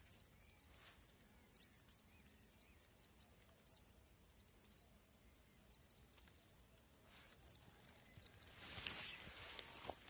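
Faint, scattered high chirps, the begging peeps of crested lark nestlings in their grass nest. Near the end a louder rustling of dry grass and handling noise comes in.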